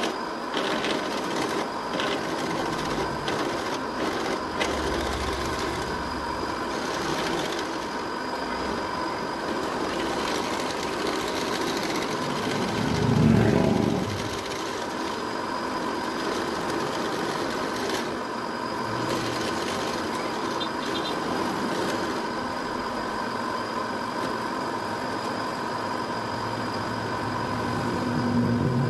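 Drill press running steadily with a motor hum and whine while its bit is fed into a white plastic block clamped in a machine vise. About halfway through, a louder low rumble swells and fades over about a second.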